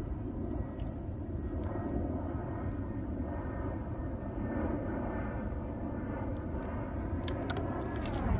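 Distant engine of a passing vehicle: a steady low rumble with a hum that drops in pitch near the end as it goes by.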